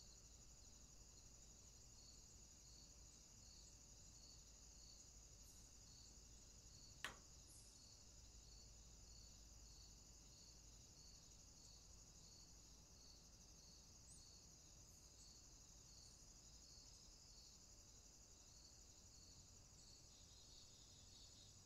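Faint insects chirping steadily in a high, even pulse about twice a second, with one sharp click about seven seconds in.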